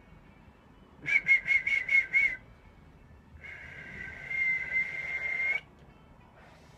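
A man whistling into a telephone mouthpiece: a quick run of about six short high notes, then after a pause one long held note lasting about two seconds.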